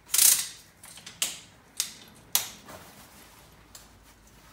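Bugaboo Fox stroller's handlebar and seat being adjusted into position. A loud mechanical click with a short rattle comes first, then three sharp clicks a little over half a second apart, and a few fainter clicks near the end.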